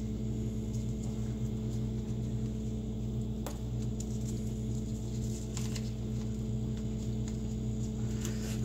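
Steady electrical hum with several pitches, over faint crinkles and a tap or two from paper being folded and pressed down by hand.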